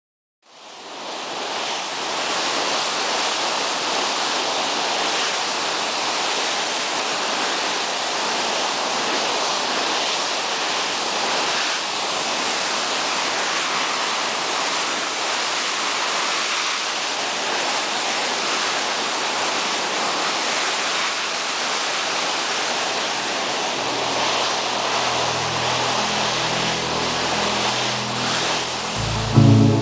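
Steady rushing and hissing of sea water churned into foam by a container ship's bulbous bow at about 22 knots; it fades in within the first second. Faint music tones come in underneath near the end.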